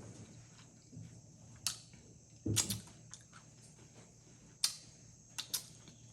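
Crunching of tortilla chips in nachos being bitten and chewed: a handful of short, sharp cracks, the fullest about two and a half seconds in.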